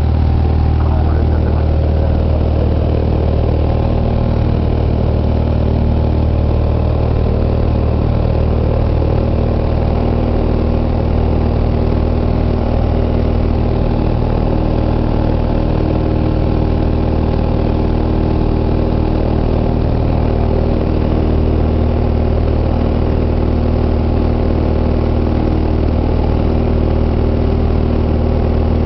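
Single-engine light aircraft's piston engine and propeller running steadily in flight, heard from inside the cabin as a loud, even drone with a deep hum and steady overtones.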